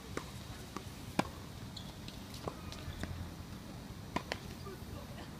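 Tennis rally: a series of about seven sharp knocks of the ball off rackets and the court, the loudest about a second in, with a pair of quick hits a little after four seconds.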